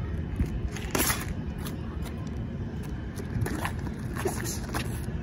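Sneakers scuffing and shuffling on asphalt during a boxing spar, with one longer scrape about a second in and a scatter of short knocks from the footwork and glove contact, over a steady low rumble.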